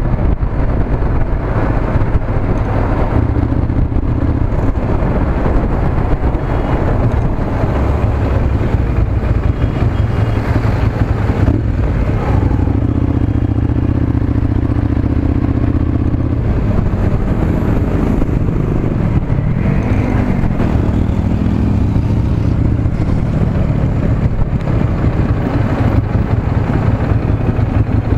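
Ducati Monster 796's air-cooled L-twin engine running through its stock exhaust under way in traffic, the engine note holding steady for a few seconds midway and rising and falling with the throttle later on.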